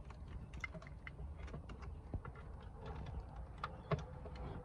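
Plastic wiring-harness connectors and loose wires handled against the back of an aftermarket double-DIN head unit: a string of light, irregular clicks and rattles, with one sharper click about four seconds in as a plug is pushed into its socket. A low steady rumble runs underneath.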